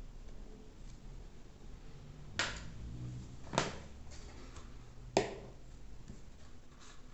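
Three sharp clicks, the last the loudest, with pauses of about a second between them.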